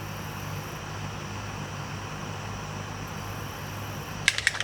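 Steady low machine hum, then from about four seconds in a quick run of sharp clicks, a stir stick tapping against a cup as liquid plastisol is mixed.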